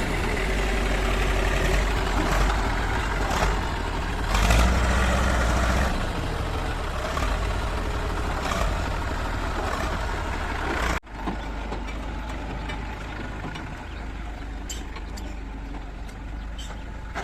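Diesel engines of a backhoe loader and tractors running steadily, with scattered short knocks. The sound drops off abruptly about eleven seconds in, then continues quieter.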